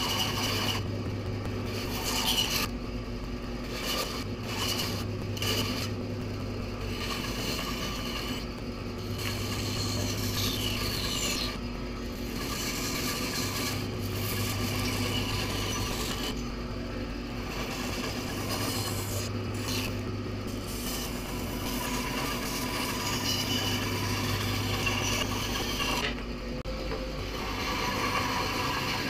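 Band saw running, its blade cutting through a thick wooden block along a curved line, with a steady hum under the rasp of the blade in the wood.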